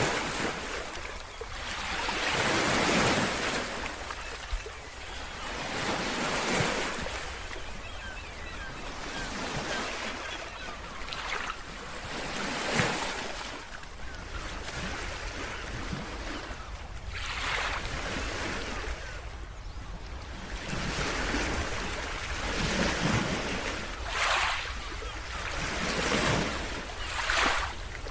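Big surf breaking on a beach in strong wind, a wave crashing and washing in every few seconds. Wind buffets the microphone throughout.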